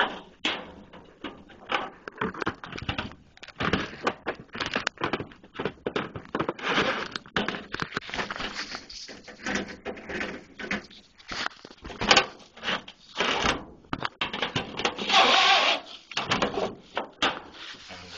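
Close, irregular rustling, scraping and knocking as laundry fabric is handled and moved about, with louder knocks about twelve seconds in and a longer burst of rustling a few seconds later.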